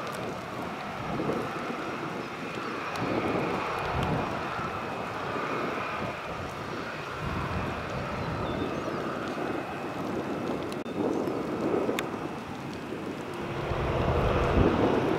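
Airliner engines running with a steady whine over a noisy rush, and wind gusting on the microphone several times.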